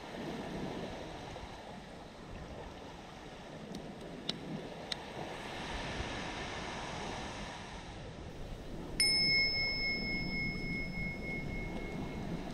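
A single bell chime rings out sharply about nine seconds in and rings on for about three seconds as it fades, marking the change of interval in the timed workout. Steady surf and wind run beneath it, with a few faint clicks a little before the middle.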